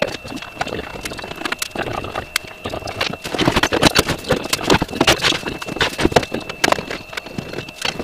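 Knocking and clattering of a microwave oven being tipped over on a wooden bench while its sheet-metal outer cover is worked loose and pulled off, with many irregular metallic knocks that come thickest in the middle.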